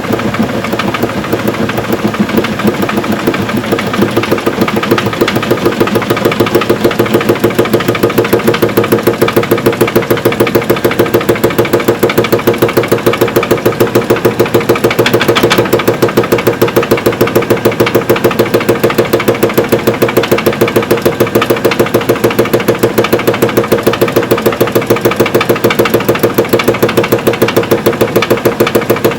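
Evrika-3M semi-automatic washing machine on its spin cycle, the drum running with a rapid, regular knocking over the motor's steady hum. The knocking builds over the first few seconds, then holds even. It is the sign of a worn drum bearing.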